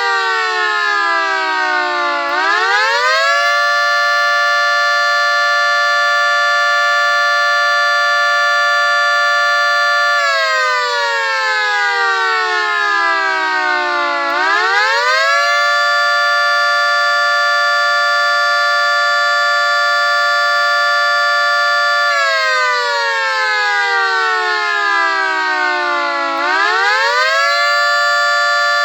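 One-third-scale 3T22A siren replica sounding a multi-tone chord. It holds a steady pitch for several seconds, winds down in falling pitch, then quickly winds back up, three times over. The wind-downs are quicker than normal because its drive motor has badly worn, noisy bearings.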